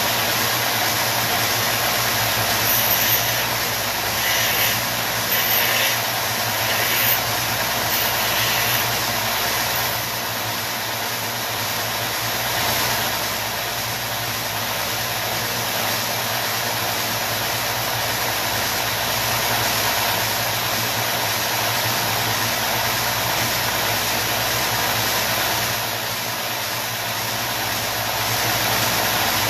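Edge sander running steadily, with several short grinding touches between about two and nine seconds in as the top shaft of a stacked concentric potentiometer is bevelled against the belt.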